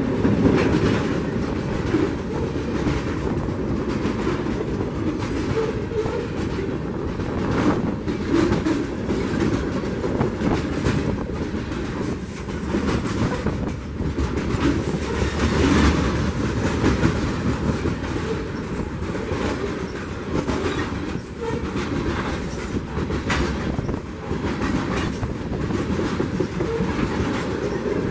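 Freight train's covered hopper cars rolling past at close range: a steady rumble from the steel wheels, broken by frequent sharp clicks and clatter as the wheels cross the rail joints.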